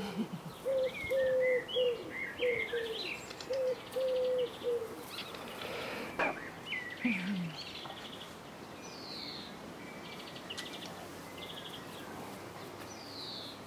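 Small birds chirping and calling, with short high chirps and falling calls spread through. In the first few seconds a run of short, low, even-pitched notes repeats about twice a second.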